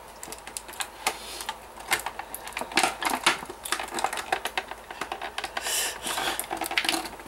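Stiff clear plastic toy packaging being worked open by hand: a run of irregular crackles and clicks as the plastic is flexed and pried.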